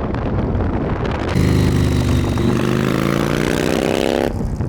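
Motor vehicle engine running with a low rumble, then accelerating hard, its pitch climbing steadily for about three seconds before it stops abruptly.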